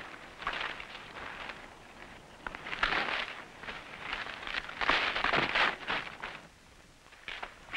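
Dry maize stalks and leaves rustling and crackling as they are pushed aside and brushed against, in uneven bursts; the loudest come about three seconds in and again around five to six seconds in.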